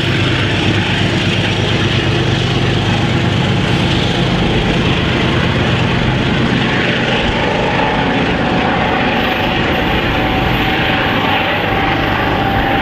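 Diesel locomotive engine running steadily with a deep drone, and a thin steady whine growing clearer about eight seconds in.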